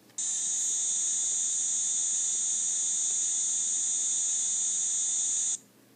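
Recorded cicada call played through a children's sound toy's small speaker. A steady, unbroken high-pitched buzz lasts about five and a half seconds and cuts off abruptly.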